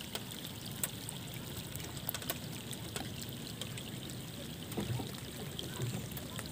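Rain falling on a calm sea: a steady hiss dotted with many scattered sharp ticks of individual drops.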